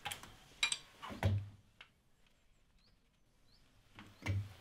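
A few light metallic clicks and knocks as a spanner and flat-bladed screwdriver work the valve adjuster screws and lock nuts on a Honda K20 cylinder head, in the first second and a half and again near the end. Faint bird chirps in between.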